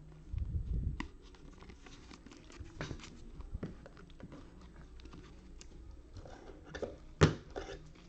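Trading cards and their pack wrapper being handled: scattered light card flicks and rustles, a dull bump of handling noise in the first second, and one sharp click about seven seconds in.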